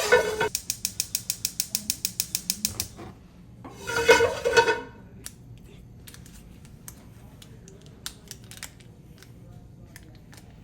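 A rapid run of sharp mechanical clicks, about eight a second, for nearly three seconds, then a louder short rattling burst about four seconds in, and faint scattered ticks after it.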